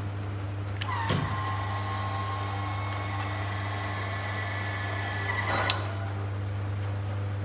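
Electric motor of a Rocky Hinge hidden fuel filler on a 1955 Chevrolet whining steadily for about five seconds as it swings the tail light out to reveal the filler, starting with a click and stopping with a clunk.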